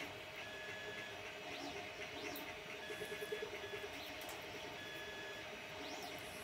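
Faint bird-like chirps: a pair of short rising-and-falling calls about a second and a half in and another pair near the end, over a steady low hum. About halfway through comes a quick run of light clicks from small printed plastic parts and a toothed belt being handled.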